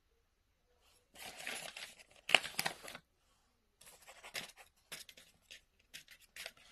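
Sheets of paper rustling and crinkling as they are moved, in a long stretch of rustling with one sharp crackle about two seconds in, then shorter scattered rustles.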